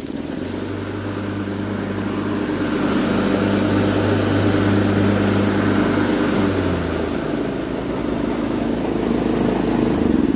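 Huskee LT4200 riding mower engine running steadily with the blade deck engaged, a test run after replacing the deck belt. The low tone changes about seven seconds in.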